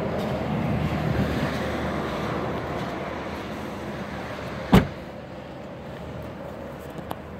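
BMW 740 rear door swung shut with one solid thump about two-thirds of the way in, after a few seconds of rustling handling noise.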